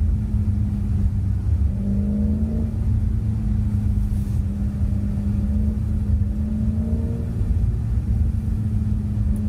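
Audi quattro car driven at a steady pace on a snowy road: a steady engine drone over a continuous low road rumble, the engine note strengthening slightly about two seconds in.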